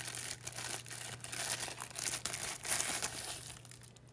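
Clear plastic wrap crinkling and crackling in quick, irregular bursts as it is pulled off a knife, dying down about three and a half seconds in.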